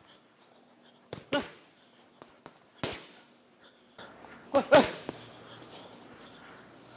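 Boxing gloves smacking into Thai pads during pad work: a series of sharp slaps, with a quick flurry of the loudest strikes about four and a half to five seconds in.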